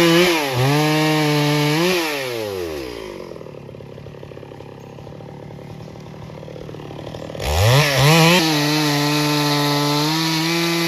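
Two-stroke chainsaw revved up and held at high speed for about two seconds, then dropping back to idle. A few seconds later it is revved up again and held at a steady high speed to the end.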